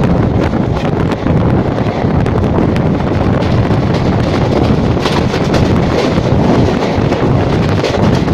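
Loud wind buffeting the microphone at the open door of a fast-moving passenger train, over the rumble of its wheels on the rails, with a run of clicks about five seconds in.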